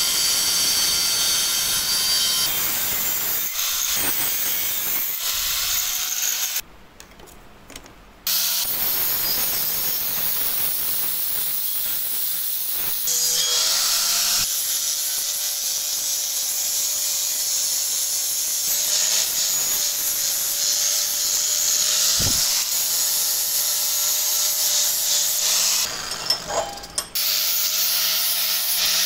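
Electric angle grinder cutting and grinding the steel of a rusty spade blade and socket: a steady high hiss of disc on metal, with a motor whine through the later part. It cuts out briefly twice, once about a quarter of the way in and once near the end.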